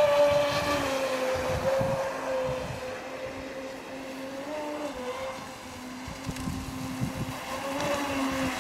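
Radio-controlled racing powerboat running flat out across the water, its motor giving a steady high tone that dips and rises slightly as it goes.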